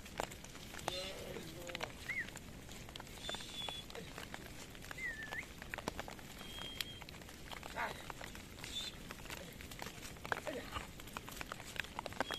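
A flock of sheep and goats grazing and moving through wet brush: scattered rustling and clicks of hooves on stones and stems, with a short bleat about a second in.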